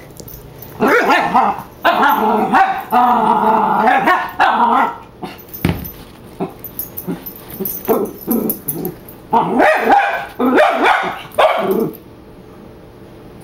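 Dachshund puppy barking in two bouts of rapid barks, the first from about a second in, the second near the end, with scattered short yips and scuffles between.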